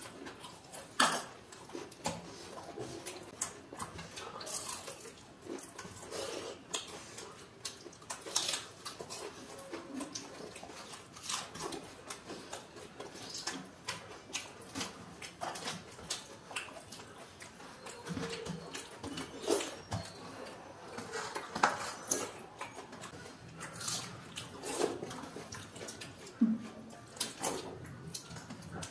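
Hands mixing watery soaked rice (panta bhat) on steel plates: wet squelching and splashing, with scattered clinks and scrapes of fingers and a spoon on the metal, and chewing.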